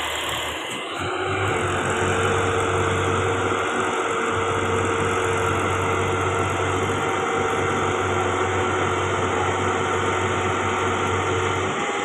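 John Deere 5075 tractor's diesel engine driving a tractor-mounted combine harvester at work, a steady drone with a steady whine from the running machinery over it.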